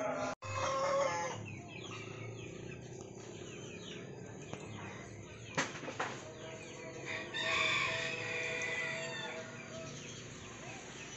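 Background birds: a rooster crowing about seven and a half seconds in, over scattered small-bird chirps, with a single sharp click about five and a half seconds in.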